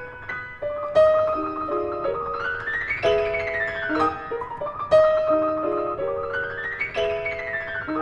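Background music: piano playing a repeating melodic phrase of held notes, with no speech.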